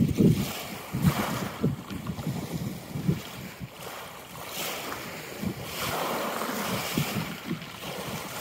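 Wind buffeting the microphone in irregular gusts, over sea waves washing in and fading several times.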